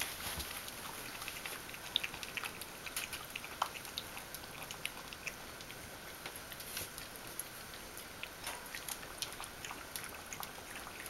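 Bichon Frisé puppies moving about on a laminate floor: scattered light clicks and ticks of small claws and paws, irregular and faint.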